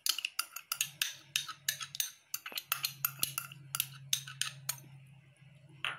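Metal spoon clinking and scraping against a small glass cup as its contents are scraped out into a bowl: a quick series of light clicks, thinning out near the end. A faint steady low hum sits underneath.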